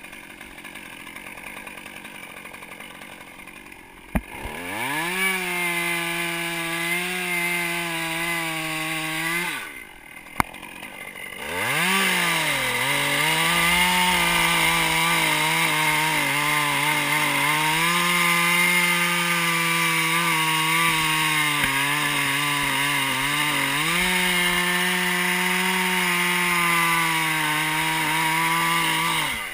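Stihl MS 201 T top-handle two-stroke chainsaw revving up about four seconds in and cutting into a red oak limb. It eases off for a moment, then runs at full throttle through the cut for the rest of the time, its pitch sagging a little now and then as the chain loads in the wood, and drops off just at the end.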